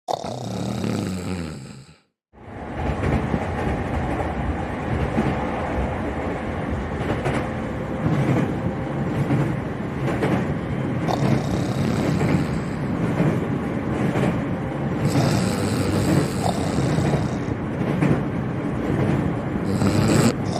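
Steady running noise of a train carriage in motion: a dense rumble, with a brief dropout to silence about two seconds in.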